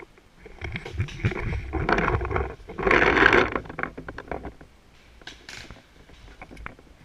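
Rustling and scraping as a paintball player's camera rig and marker brush along plastic shade netting while he shifts position, loudest in the middle and dying down after about four seconds, with a few light clicks and scuffs afterwards.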